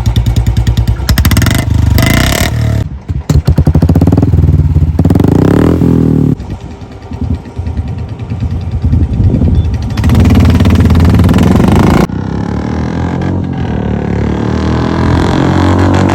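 Royal Enfield Bullet single-cylinder motorcycle engines revving and accelerating hard, the sound switching abruptly about twelve seconds in as one bike's sound gives way to another's, then climbing in pitch as it accelerates.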